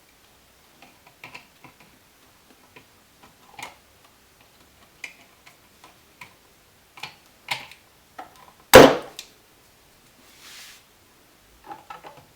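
Small, irregular metal clicks and taps of hand tools on an electrical outlet's ground screw and wire as the wire is worked loose, with one much louder knock about nine seconds in.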